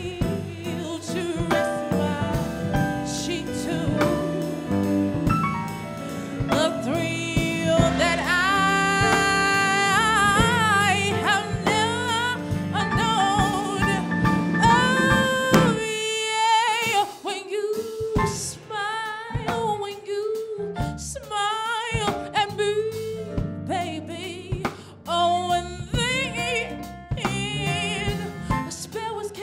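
Female vocalist singing R&B/gospel live, her held notes wavering with vibrato, over electronic keyboard and drum kit. About halfway through the band drops back and the voice carries on over sparse accompaniment.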